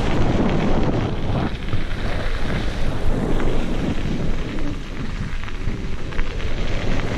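Wind buffeting the microphone of a camera on a mountain bike riding a gravel trail, mixed with the tyres crunching over gravel and many small knocks from the bike.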